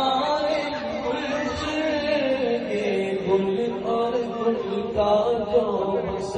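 Men's voices chanting a naat, a devotional song in praise of the Prophet Muhammad, without instruments.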